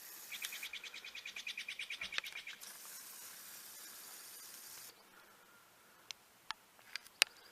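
A small bird's rapid trill, about ten notes a second, lasting about two seconds, over a steady high hiss that cuts off suddenly about five seconds in. A few sharp clicks near the end.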